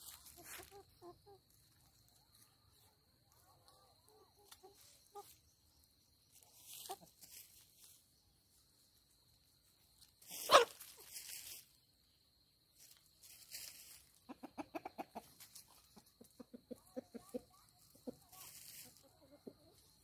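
Chickens clucking, with a run of quick repeated clucks in the second half and one sharp, loud sound about halfway through.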